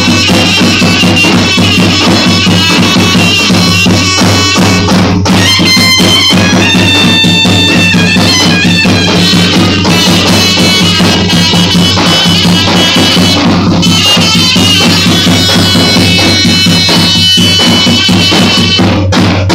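Loud music with a wind-instrument melody in stepping held notes over a steady drum beat and heavy bass.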